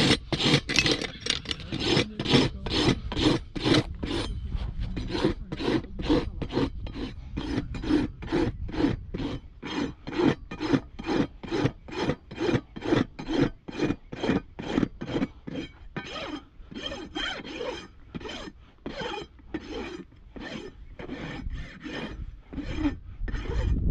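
Steel farrier's hoof rasp filing down a neglected, overgrown hoof in steady back-and-forth strokes, about two a second, each a coarse scraping rasp, with a few brief pauses in the second half.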